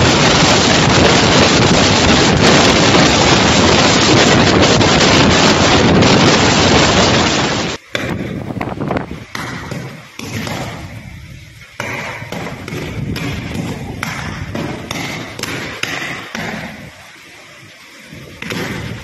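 Typhoon wind and heavy rain blasting the microphone as a loud, steady roar for about eight seconds. After a sudden change, gusty wind and rain continue quieter and uneven, with scattered knocks and thumps.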